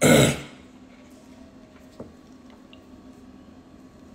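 A short, loud rush of noise right at the start. Then a quiet stretch of faint clicks and small handling sounds as a hand-held lighter is struck and its flame held to a rolled joint.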